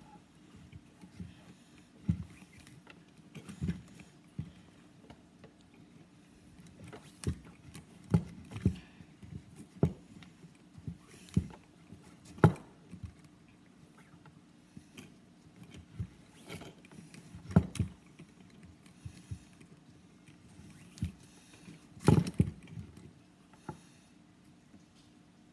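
Handling noise from hand-weaving 550 paracord on a wooden bracelet jig: irregular knocks and taps as the cord is threaded and pulled tight against the jig, with soft rubbing of cord, over a faint steady hum.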